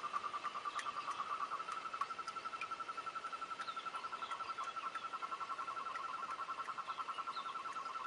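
A steady trill from a calling animal, rapidly pulsed on one pitch, with faint higher chirps and ticks scattered over it.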